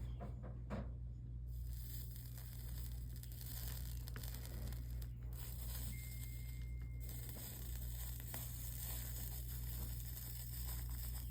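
Faint crackling sizzle of flux and molten solder under a soldering iron working stained-glass joints, breaking off briefly twice as the iron is lifted, over a steady electrical hum.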